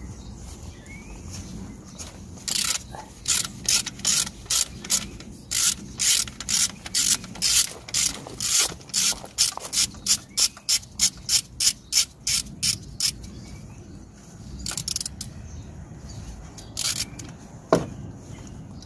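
Ratchet wrench clicking in quick back-and-forth strokes as it turns a 6 mm Allen bit to undo a bolt on the EGR valve cooler. Runs of clicks start a couple of seconds in at about two to three a second and quicken midway. They stop about two-thirds of the way through, and a few single clicks follow near the end.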